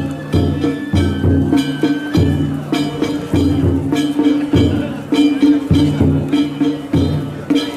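Danjiri festival music (narimono): a taiko drum beaten in a steady rhythm together with ringing struck metal gongs.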